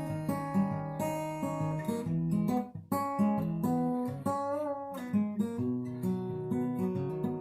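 Seagull S6 Original acoustic guitar, with a solid cedar top and cherry laminate back and sides, played as a run of plucked notes and chords. There is a short break about three seconds in, and a held note wavers with vibrato soon after.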